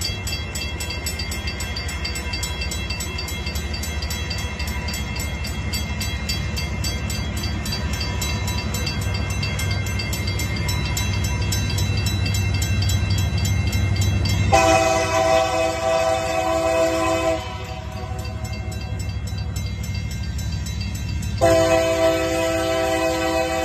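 Grade-crossing bell ringing steadily over the low rumble of an approaching diesel freight locomotive, which grows louder. The locomotive's multi-tone air horn sounds a long blast of about three seconds a little past halfway, then starts a second long blast near the end, the crossing signal it blows for a road crossing.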